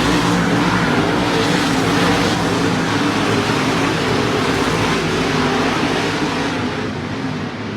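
A field of dirt-track modified race cars racing, several engines running hard at once with overlapping, wavering engine notes. The sound eases off slightly near the end.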